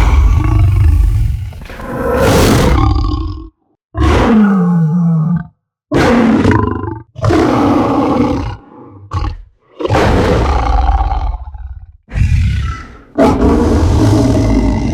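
Lion roar sound effect: a run of about eight loud, deep roars and growls, each lasting a second or two with short silent gaps between them; one about four seconds in ends with a falling growl.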